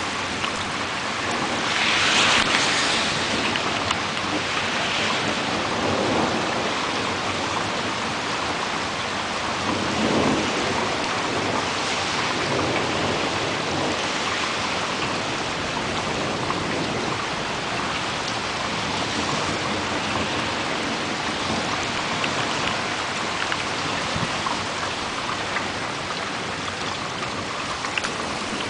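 Steady heavy rain falling, with rumbles of thunder rolling in over it, the loudest swell about two seconds in and another around ten seconds.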